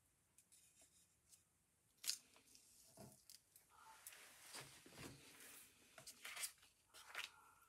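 Faint rustling and a few light clicks from handling card and vellum pieces during gluing.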